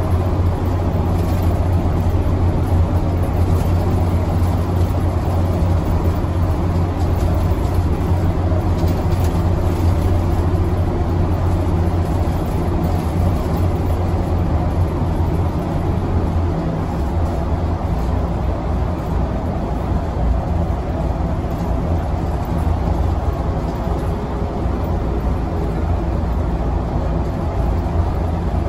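Engine and road noise of a Hiroden city bus heard from inside while it drives: a steady low drone. Its deep hum eases and changes pitch a little past halfway.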